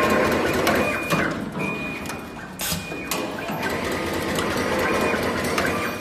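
A fully automatic multicore cable stripping and crimping machine running: its mechanisms whir and clatter with a series of sharp clicks and clacks. A steady high whine comes in about a second and a half in and lasts over a second.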